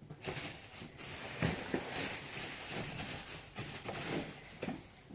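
Rustling and light knocks of shopping items being handled.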